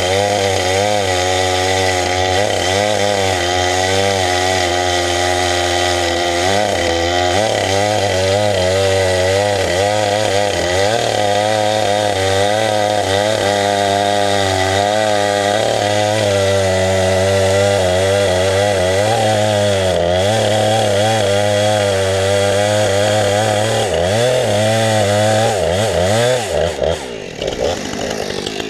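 Husqvarna 455 Rancher two-stroke chainsaw running at high revs and cutting logs, its engine pitch rising and falling as it bogs into the wood and frees up. The revs drop near the end.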